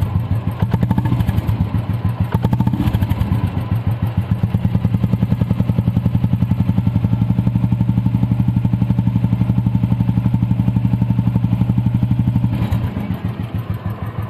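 Royal Enfield 350's single-cylinder engine idling steadily through an aftermarket chrome silencer, an even, rapid thump-thump beat. Its note is clean, with no harsh or cracked, raspy sound. It is slightly fainter near the end.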